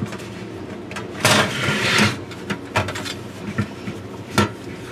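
Metal top cover of a network video recorder being pushed back and worked off its case: a scraping slide about a second in, then a few sharp metallic clicks and knocks.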